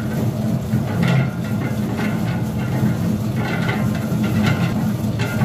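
Electric dough mixer running steadily, its spiral hook kneading bread dough in a stainless steel bowl with a low motor hum. Loose clumps of dough knock and scrape against the bowl now and then, early in the kneading before the dough has come together.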